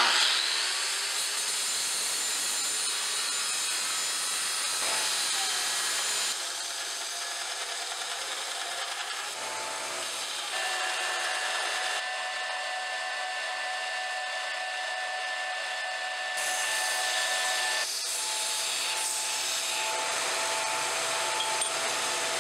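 Portable bandsaw cutting mild steel pipe and flat stock: a steady motor whine under the blade's rasp through the metal. The sound changes abruptly several times.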